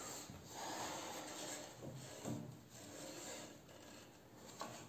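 Faint rubbing and scraping of a hand over the surface of a freshly turned maple burl bowl, coming in several swells, with a short knock near the end.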